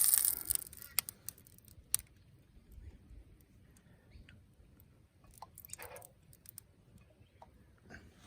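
Used cottonseed cooking oil hitting a hot pan: a brief sizzle that dies out within the first half-second, then scattered faint crackles and sharp pops. The short sizzle is a sign of a little water in the oil, by the owner's reading probably.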